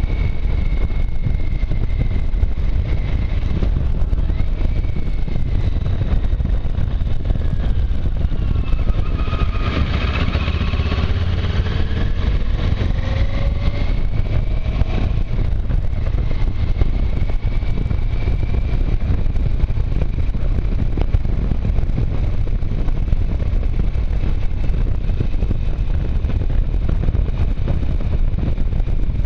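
Motorcycle on the move: a steady low rush of wind buffeting the microphone behind the windscreen, with the engine's pitch rising and falling as it revs, several rising sweeps between about nine and fifteen seconds in.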